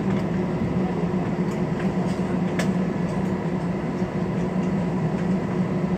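Airliner cabin noise: the jet engines and airflow make a steady rumble with a droning hum through it.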